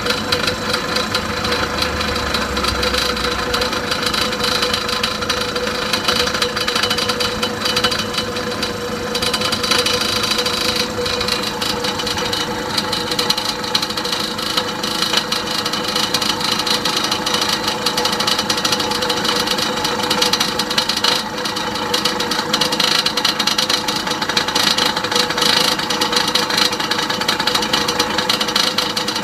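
Kanematsu air compressor running steadily, its piston pump beating in a fast, even rhythm.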